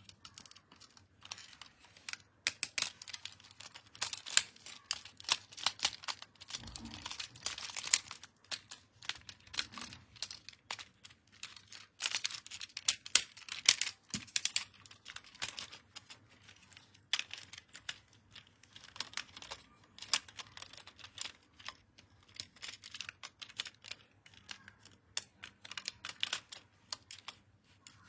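Plastic toy packaging and small plastic toy parts being handled: rapid small clicks, taps and crinkles in bursts, with quieter gaps between them.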